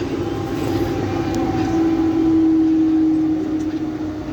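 Mumbai suburban local electric train running, heard from on board: a steady rumble of wheels on track with a hum of several held tones that drift a little in pitch.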